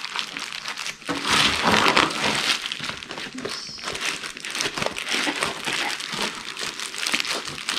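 Plastic bubble-wrap bag crinkling and rustling as it is handled and packed, loudest from about one to two and a half seconds in.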